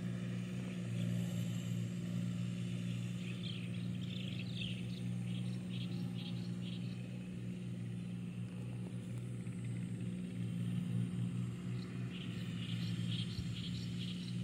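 Distant Kubota tractor's diesel engine running at a steady pitch as it prepares the wet rice paddy. Birds chirp in short bursts over it, once about four seconds in and again near the end.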